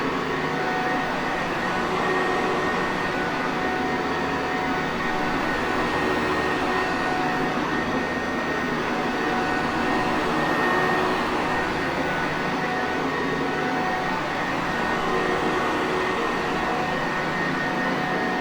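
Sanitaire vacuum cleaner running steadily: a constant motor whine with a few high steady tones over rushing airflow noise.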